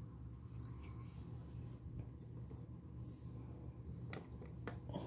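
Faint handling sounds of fingers picking small fried cassava balls out of a bowl: light clicks and rubbing, the clearest a few seconds in. Under them runs a steady low hum.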